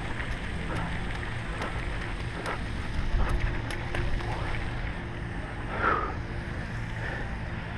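Wind rumbling on an action camera's microphone, with faint taps every second or so as juggling balls are caught. A few louder swells come around three to four seconds in and again near six seconds.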